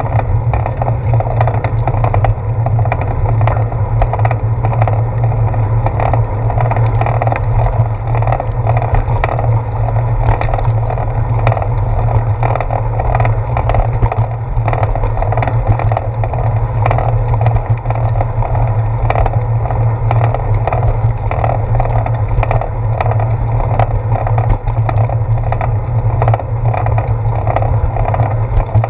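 Bicycle riding noise picked up by a handlebar-mounted GoPro Hero 4: a steady low hum of tyre and road vibration, with a pulsing that repeats about twice a second and many small rattling clicks.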